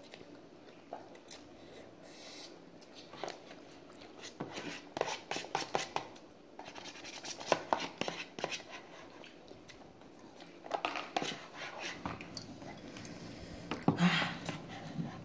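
Utensils scraping and clicking against a paper instant-noodle bowl as noodles are eaten: a run of short, irregular clicks and scratches.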